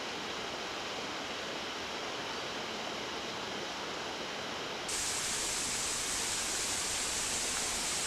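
Steady outdoor background hiss with no distinct events, which turns suddenly louder and brighter about five seconds in.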